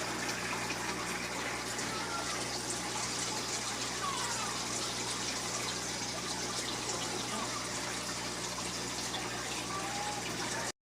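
Steady rush of running water with a low hum underneath; it cuts off suddenly near the end.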